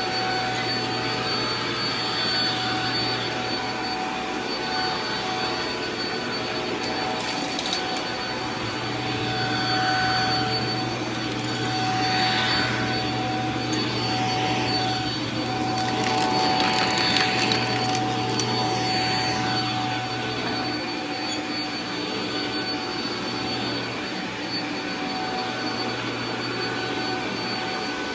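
Shark MultiFlex vacuum cleaner running on a rug, a steady motor hum and whine that grows louder and noisier for stretches in the middle as it is worked over the pile.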